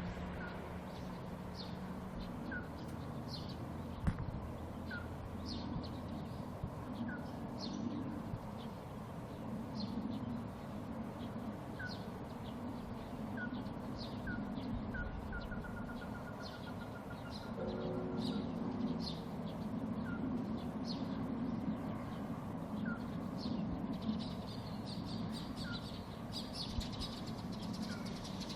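An unidentified animal repeats short, high calls that slide downward, about one every second or so. Fainter lower chirps come in between, and a quick run of about ten notes sounds near the middle. A brief low tone comes at about two-thirds of the way in, over a steady low hum.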